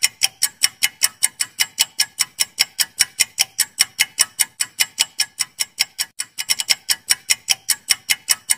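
Countdown-timer clock-tick sound effect: sharp, even ticks about four a second, with a brief stumble of quicker, uneven ticks about two-thirds of the way through.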